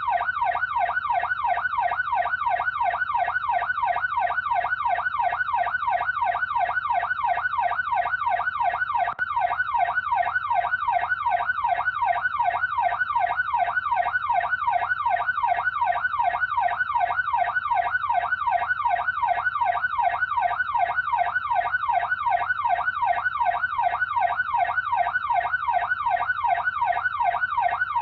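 Electronic police siren in its fast yelp pattern: a pitched wail sweeping rapidly up and down, about three times a second, steady and unbroken.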